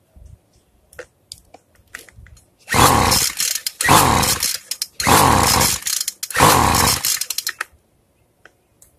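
Two-stroke string trimmer being pull-started four times in quick succession, each pull a loud burst about a second long, without the engine settling into a run; its carburetor's low-speed fuel screw is still out of adjustment. A few light clicks of handling come before the first pull.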